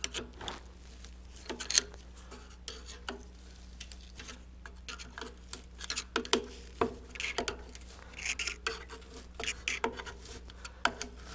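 Catalytic combustor of a Blaze King wood stove being forced out of its housing: irregular scraping and clinking, many short clicks and knocks.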